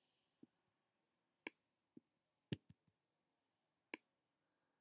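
Computer mouse clicking: three sharp clicks roughly a second apart, with a few softer ticks between them, against near silence.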